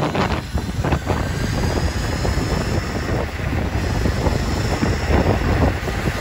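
Wind buffeting the microphone of a rider moving at speed on an electric skateboard, over a steady low rumble of wheels on asphalt.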